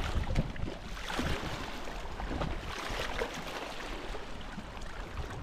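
Water splashing and lapping, with scattered small knocks.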